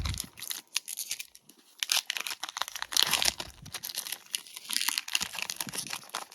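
A trading card pack wrapper being torn open and crinkled, a run of irregular crackles and rustles.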